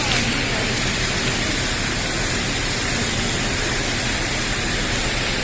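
Steady rush of falling water from an indoor waterfall feeding a koi pond, with a faint low hum underneath.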